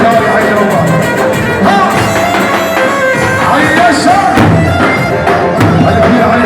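Loud amplified Arab folk dance music: a wavering violin-like lead melody over a steady low beat, with no singing.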